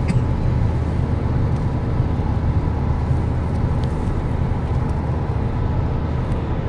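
Steady drone of a car at speed heard from inside the cabin: engine and tyre noise heaviest in the low end. The windscreen wipers are running, with a faint click near the start.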